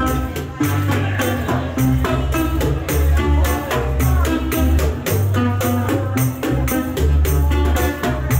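A live band plays acoustic guitar, electric bass and hand percussion. The percussion keeps a steady beat at the top of the sound over a prominent, moving bass line.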